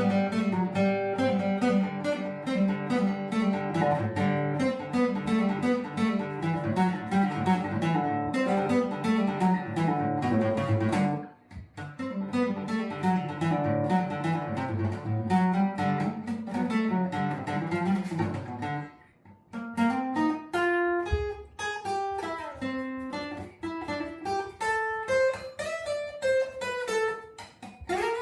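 Acoustic guitar music: dense plucked and strummed chords that pause briefly twice, then give way after about 19 s to a single melody line with sliding notes.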